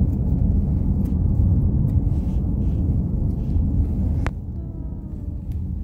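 Steady low road and engine rumble inside a moving car. About four seconds in there is a single sharp click, and the rumble then gets a little quieter.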